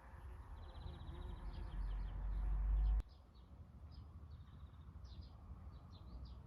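Small songbirds chirping, with a quick trill about half a second in and scattered short calls after. Under the birds a low rumble builds and cuts off suddenly about three seconds in.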